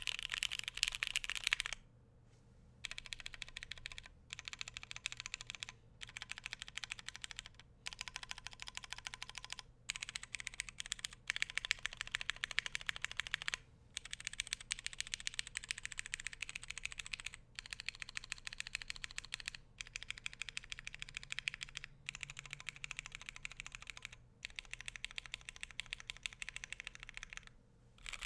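Fast typing on a KBDfans Tofu60 custom mechanical keyboard with a polycarbonate plate, Cotton Candy switches and GMK Hennessey keycaps: dense runs of rapid keystroke clacks broken by short pauses every second or few.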